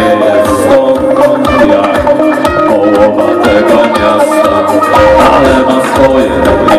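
A live band playing a song loudly, with drums, electric guitars and keyboard.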